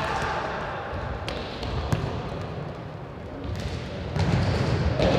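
Futsal ball struck a few times on the hard sports-hall court during play, sharp thuds over the low rumble of players running, in a large echoing hall.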